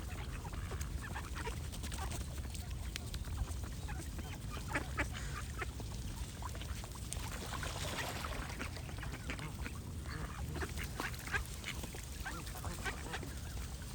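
Ducks quacking over and over in many short quacks, with birds singing behind them and a steady low rumble underneath.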